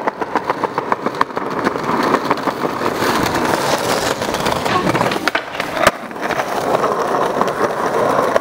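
Skateboard wheels rolling over rough stone paving, a steady gritty rumble dotted with small clicks. A single sharp crack comes a little before six seconds in.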